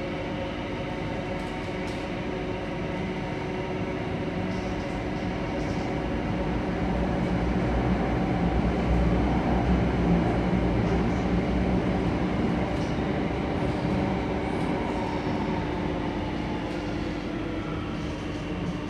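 Alstom Metropolis C830C metro train heard from inside the carriage while running between stations: continuous rumble and wheel noise over a steady hum. The noise swells to its loudest around the middle, then eases off near the end.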